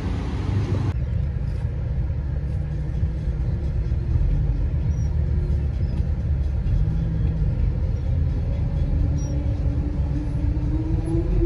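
Street traffic noise for about a second, then a cut to the low, steady rumble of a car's engine and tyres heard from inside the cabin as it drives.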